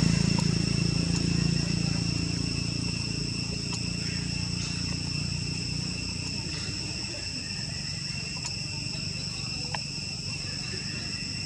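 Steady buzzing chorus of insects in the forest, several high, even tones held throughout. A low rumble fades away over the first few seconds, and there is a faint click near the end.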